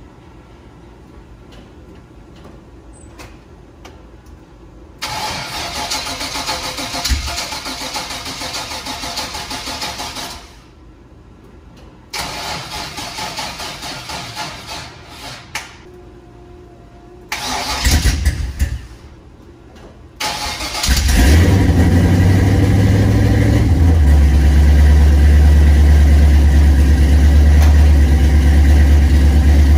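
Square-body Chevy pickup engine being cranked on the starter in three long tries that fail to catch, then starting on a fourth short crank about 21 seconds in. It runs at a fast idle, then drops to a steady lower idle about three seconds later.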